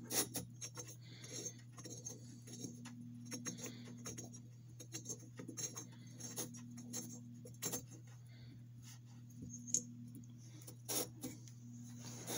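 Scattered light clicks and clinks of a Honda GX200-clone cylinder head being handled and turned over, over a steady low hum.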